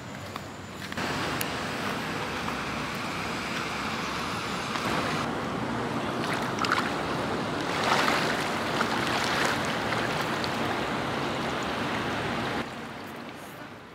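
Swimming-pool water splashing and running, a steady wash of water noise with a few louder splashes around the middle.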